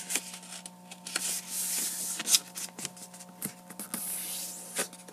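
A sheet of paper being creased by hand against a hard tabletop: papery rustling and sliding rubs as fingers press and run along the fold, broken by many short, sharp taps and crackles.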